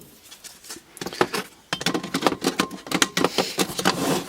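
Small plastic parts of a washing machine door handle assembly clicking and rattling as they are handled: scattered clicks at first, then a dense run of clatter from about two seconds in.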